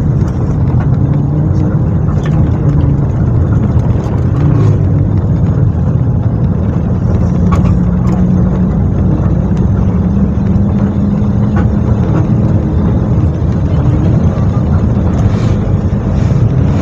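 Intercity bus's engine and road noise heard from inside the cabin while it cruises along a highway: a loud, steady low drone.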